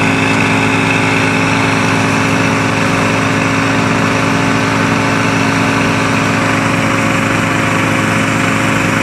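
Engines of floating gold suction dredges running steadily, a constant drone that holds one pitch throughout.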